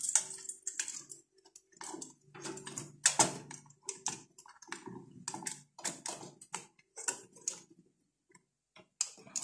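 Irregular clicks, taps and scrapes of a universal CPU cooler being seated on an AMD motherboard socket bracket and its retention clips latched by hand.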